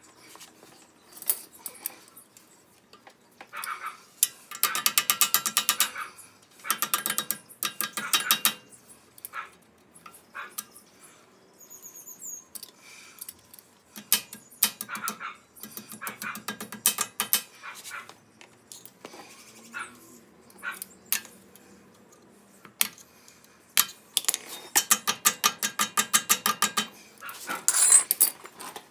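Hand ratchet clicking in quick runs of one to three seconds as nuts are run down on the tie rod ends, with odd single metal clicks between the runs.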